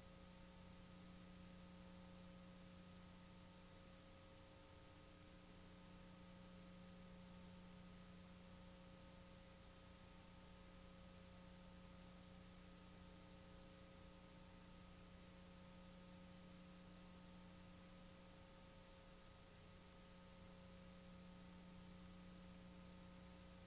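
Near silence: a faint, steady electrical hum with hiss, the noise floor of a blank stretch of the recording.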